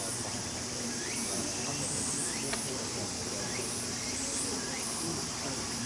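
Steady high-pitched buzzing of a summer insect chorus, pulsing in its highest part, with a series of short rising chirps repeating about once or twice a second.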